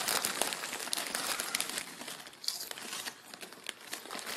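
Crisp crinkling and crunching from a bag of potato chips and the chips being eaten close to the microphone. It is dense at first and thins out after about two seconds.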